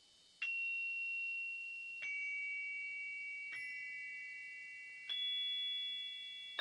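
High metal chimes struck four times, about every second and a half, each at a different pitch, the notes ringing on and overlapping as relaxation bell tones.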